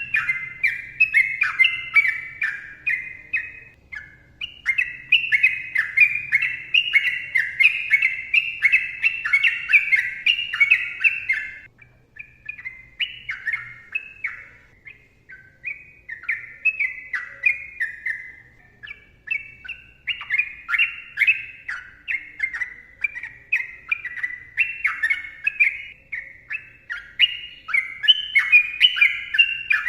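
Yellow-vented bulbul (trucukan) singing a long, fast run of bubbly, chattering notes. The song thins to shorter, spaced phrases about twelve seconds in, then picks up into a dense run again about twenty seconds in.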